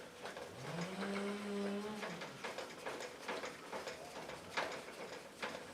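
A low, drawn-out moo-like call that rises and then holds for about a second and a half, followed by a series of light plastic ticks and clicks as a handle is threaded into the drill press body.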